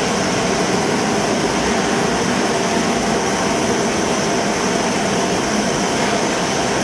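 A steady, even rushing roar with no rhythm or breaks.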